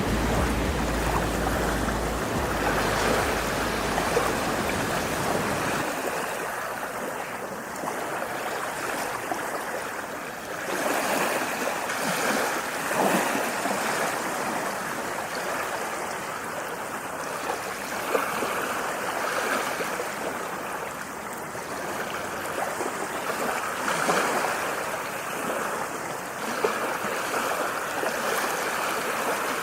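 Continuous rushing water. For the first six seconds it carries a deep low rumble like surf; then the rumble cuts out and it goes on as a lighter, stream-like rush that swells and eases irregularly.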